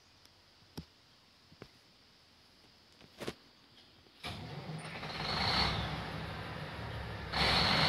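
Diesel engine of a Tata Signa tipper truck running on a steel ramp, loud and steady, setting in about four seconds in, with a louder hiss near the end. Before that only a few faint clicks.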